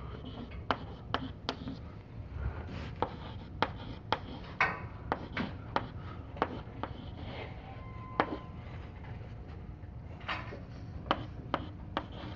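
Chalk writing on a blackboard: irregular sharp taps and scratches, a few each second.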